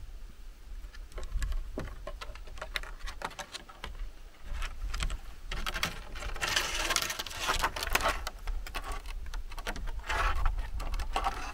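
A cat's claws scratching and clicking on weathered wooden beams as it climbs down headfirst, in a run of irregular scrapes and ticks that grows thickest in the middle and again near the end.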